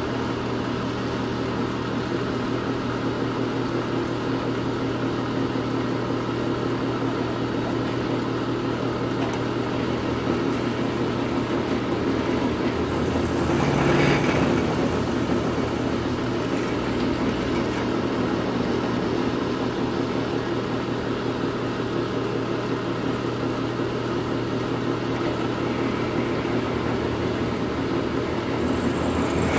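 Drill press motor and belt drive running steadily with a constant hum. About 13 seconds in, the bit is fed into a workpiece clamped in the vise, and the drilling makes the sound louder and sharper for about two seconds. It rises again near the end as the bit goes back in.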